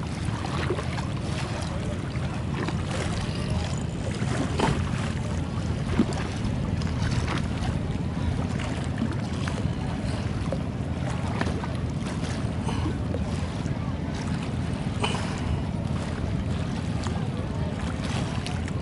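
Steady low rumble of wind and water out on a wide river, with scattered small knocks and splashes throughout.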